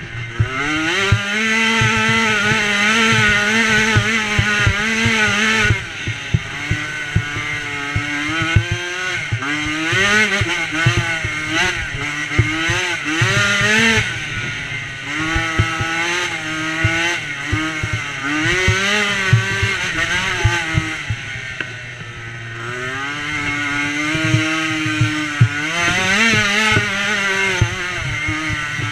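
Small engine of a DRR 90 youth race ATV, revving up and down as it is ridden hard over a rough trail: the pitch climbs and drops again and again with the throttle. Short knocks and rattles from the machine hitting bumps run throughout.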